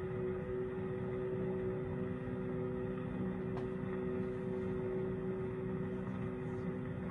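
A 1928 Victor 78 rpm orchestral record playing on a 1927 Sonora Philharmonic phonograph: a soft, steadily held chord in the middle range over constant record surface noise.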